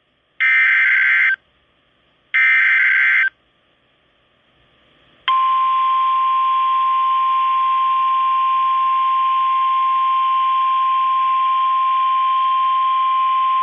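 NOAA Weather Radio SAME header bursts: the last two of three short digital data bursts, about a second each and two seconds apart. About five seconds in, the steady 1050 Hz weather radio warning alarm tone begins and holds, with radio hiss behind it. Together they announce a new winter storm warning broadcast.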